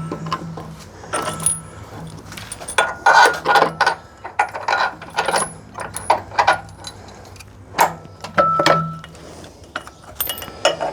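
Metal parts and tools clinking and knocking irregularly as a steel undercarriage mount is fitted to the motor mounts, over a steady low hum.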